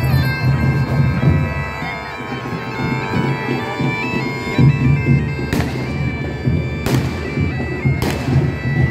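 Bagpipes playing a tune over their steady drone, with three sharp bangs a little over a second apart in the second half.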